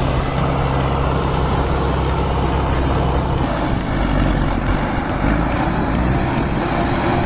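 Heavy diesel machine engine running steadily under load, its note changing about halfway through.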